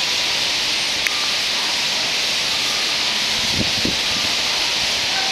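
Dense, steady hissing chatter of a large flock of white-cheeked starlings gathered at an urban roost.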